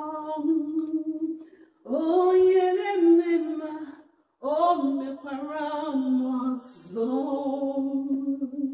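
A woman singing a worship song unaccompanied into a handheld microphone, in long held notes, with short pauses between phrases about two and four seconds in.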